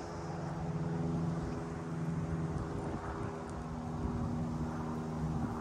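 An engine or motor running steadily: a low hum that holds its pitch, over a rumble of wind on the microphone.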